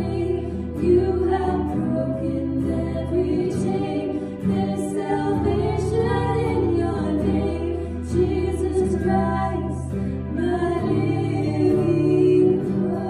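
Worship song: a woman singing long held notes to her own acoustic guitar, with keyboard accompaniment.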